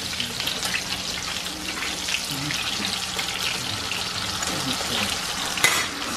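Breaded beef cutlets sizzling and crackling as they shallow-fry in hot oil in a pan, while metal tongs turn them. A sharp metal click near the end as the tongs are set down on the stove.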